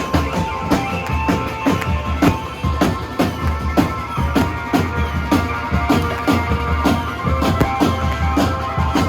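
Drum band music: a steady, driving drum beat of about three to four strikes a second over a sustained bass line and melodic tones.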